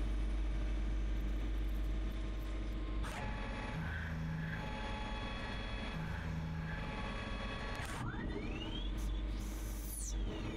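CNC lathe turning a brass chess piece: steady machine hum with the noise of the tool cutting. The sound changes abruptly about three seconds in, and near the end a spindle whine sweeps up in pitch and then falls.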